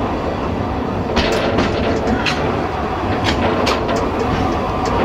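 Narrow-gauge train in motion: a steady rumble of wheels on track, broken by many short, sharp clicks and knocks at uneven intervals as the wheels pass over rail joints.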